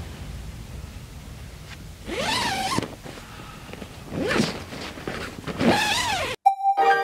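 Marmot Tungsten 2P tent's door zipper being pulled open in three long strokes, each a scraping zip of under a second, about a second and a half apart. Just before the end the sound cuts off suddenly and piano music begins.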